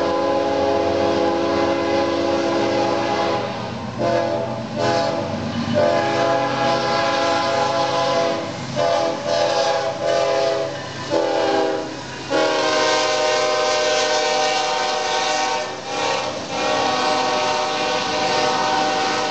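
A CSX diesel freight locomotive's multi-note air horn blowing a series of long blasts, broken by a few short ones near the middle, as the locomotive passes at speed. Under the horn run the steady rumble and wheel clatter of the double-stack container train.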